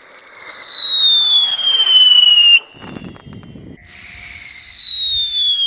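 Homemade rockets made from 'pháo chuột' whistling firecrackers going off: two loud, shrill whistles, each falling steadily in pitch for nearly three seconds. The second starts about four seconds in, after a short low crackle.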